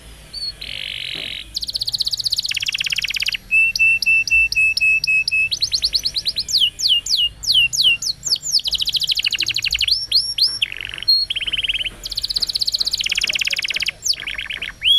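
Canary singing a long, fast song of changing phrases: buzzy trills, a run of evenly repeated notes on one pitch, then quick rising whistled sweeps, each phrase lasting a second or two.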